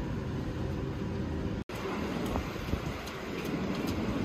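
Steady outdoor street background noise, with a momentary break in the audio about one and a half seconds in.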